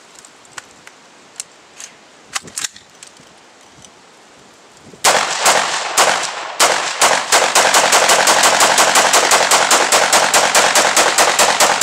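A few faint clicks, then about five seconds in an AR-15 rifle firing .223 rounds from a bare, thread-protected muzzle: a few spaced shots, then a steady rapid string of about five shots a second.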